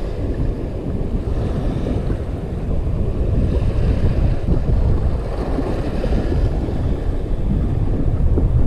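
Strong wind buffeting the camera's microphone as a steady, loud low rumble, with surf washing over the rocky shore underneath.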